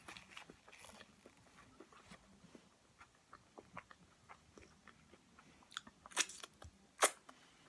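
Close-miked chewing and wet mouth sounds of a person eating a Chipotle burrito, steady small clicks with a few louder crunchy bites near the end.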